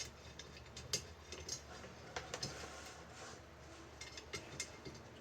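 Scattered light clicks and ticks from handling the spokes of a bicycle wheel being taken apart, about a dozen irregular taps over a few seconds.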